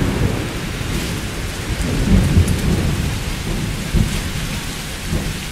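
Thunderstorm: rolling thunder over steady rain, with fresh rumbles about two and four seconds in, dying down near the end.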